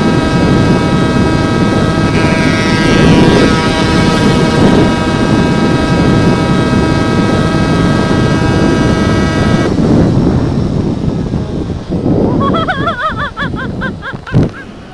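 A Yamaha RX King's 135cc single-cylinder two-stroke engine runs hard at high, steady revs through an aftermarket gutted exhaust, over heavy wind and road rush. The engine note cuts off about ten seconds in as the throttle closes. Quieter riding noise follows, with a wavering whine near the end.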